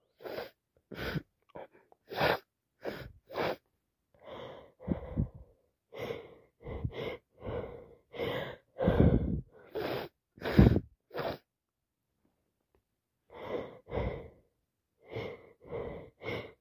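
A person with a head cold sniffing and sneezing over and over: a string of short, sharp sniffs mixed with heavier gasping breaths. It falls quiet for about two seconds before the sniffing starts again.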